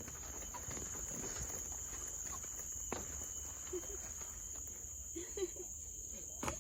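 Forest crickets trilling in a steady, unbroken high-pitched drone, with a couple of sharp clicks about three seconds in and near the end.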